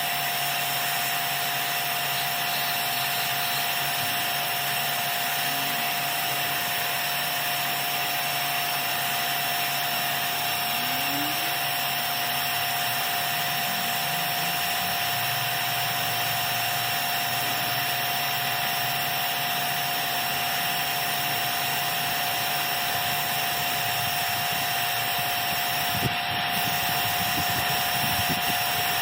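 Pressure washer running steadily, an even spraying noise with a constant high whine, with a single short click near the end.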